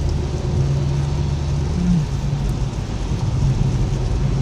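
Steady road and engine noise inside a moving car's cabin: a continuous low rumble with a low hum that shifts slightly in pitch about two seconds in.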